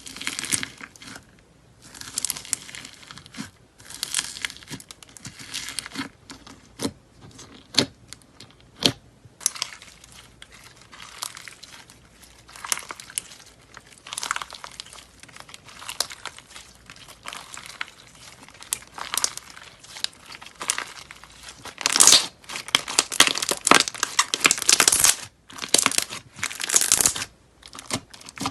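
Slime being squeezed and worked by hand: irregular crackly, crinkling noise broken by sharp clicking pops, with the densest, loudest run about three quarters of the way through.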